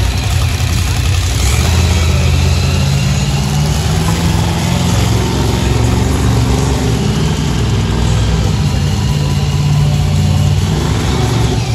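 Bone Shaker monster truck's engine running and revving, its pitch rising and falling as it drives.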